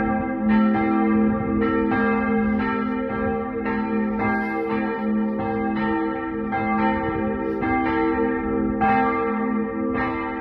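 Two church bells, a large medieval bell recast in 1858 and a small bell cast in 1667 and recast in 1892, tuned G and A, swinging and ringing together in the full peal that calls to high mass. Their clapper strokes overlap in an uneven pattern about once a second, over a steady ringing hum.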